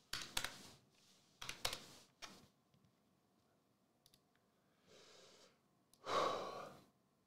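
Keys clacking on a computer keyboard in a few short runs of typing over the first two and a half seconds. A breathy exhale follows about six seconds in.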